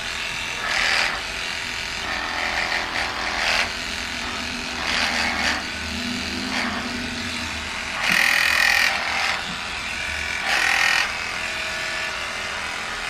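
Electric dog grooming clippers running with a steady motor hum, louder in short bursts every couple of seconds as the blade cuts through thick pug fur.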